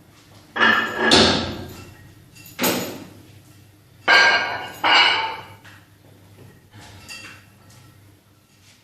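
Gym weights knocking and clanking: about six sharp, ringing metallic knocks, the loudest about a second in and again around four and five seconds in.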